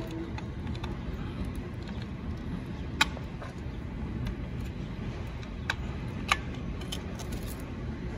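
Plastic wiring connectors on an e-bike's controller being handled and pulled apart, with light rattling of wires and three sharp clicks, about three seconds in and twice near six seconds. A steady low rumble runs underneath.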